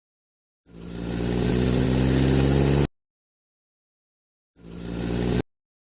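Motor-vehicle engine sound effect, played twice: a steady engine note swells up over about two seconds and cuts off abruptly, then comes back briefly near the end and cuts off again.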